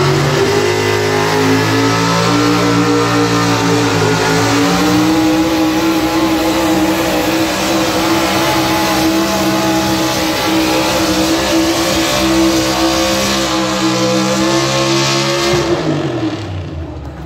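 Pulling truck's engine at full throttle dragging a weight-transfer sled down a dirt track. Its pitch climbs over the first couple of seconds, holds high and steady, then drops away about sixteen seconds in as the pull ends.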